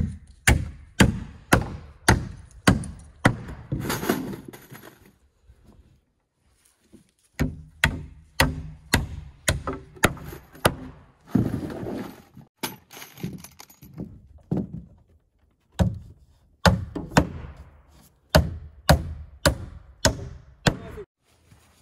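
Hand hammer driving nails into a wooden wall stud at its bottom plate. Steady blows come about two a second, in three runs separated by short pauses.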